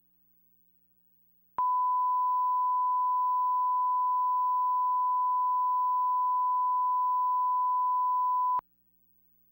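A steady, pure 1 kHz test tone comes in with a click about a second and a half in, holds for about seven seconds, and cuts off suddenly with another click. It is a line-up reference tone of the kind laid at the head of a broadcast tape for setting levels.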